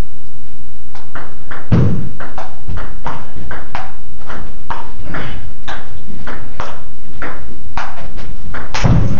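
Table tennis rally: the ball clicking off paddles and bouncing on the table about twice a second. Two heavier dull thumps stand out, one about two seconds in and one near the end.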